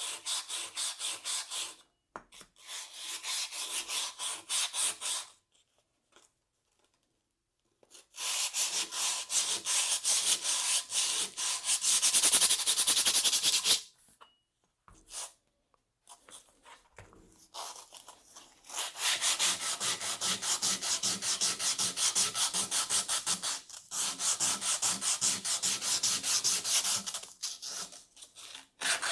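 Hand sanding of a rusty Polaris Axys snowmobile exhaust: sandpaper scrubbed rapidly back and forth over the metal. It comes in several runs with short pauses between them.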